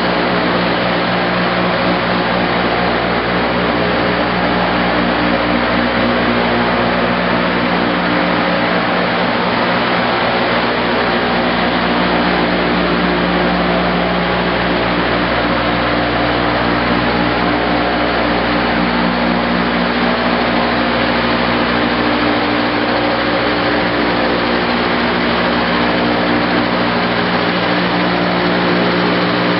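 Timesavers Vision orbital and rotary-brush sanding machine running: a steady industrial motor hum and whir with constant droning tones that do not change.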